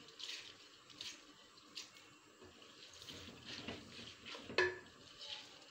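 Split mung lentils being poured into a clay pot and stirred with a wooden spoon: an uneven rustling and scraping, with a sharp knock near the end.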